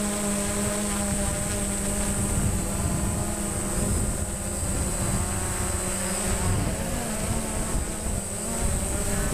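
DJI Phantom quadcopter's propellers and motors buzzing in flight: a steady drone with a thin high whine above it, its pitch wavering a little from about six seconds in.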